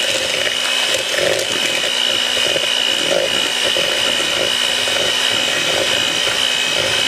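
Electric hand mixer running steadily at speed, its beaters whipping thick cream cheese batter in a bowl; the motor holds one steady high whine.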